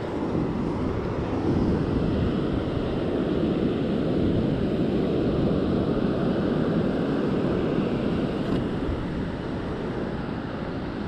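Steady wind buffeting an action camera's microphone, with ocean surf breaking behind it.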